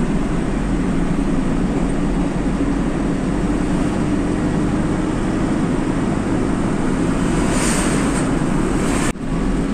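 Truck engine and tyre noise heard from inside the moving cab, a steady drone. An oncoming truck passes about eight seconds in, with a brief rush of air, and the sound cuts off abruptly soon after.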